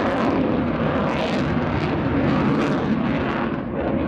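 Jet noise from a Sukhoi Su-27's twin AL-31F turbofans as the fighter manoeuvres: a loud, steady rumble with hiss that swells and fades several times.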